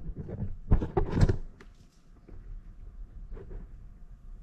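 Handling noises during a bicycle inner-tube repair: a cluster of knocks and clatter in the first second or so, then fainter scattered taps and rustling.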